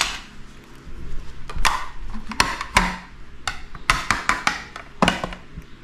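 Plates, a glass dish and an aluminium flan tin clacking and clinking against each other and the tabletop. The leche flan is being turned out of its mould onto a plate. The knocks are sharp and scattered, with a quick run of them a little past the middle.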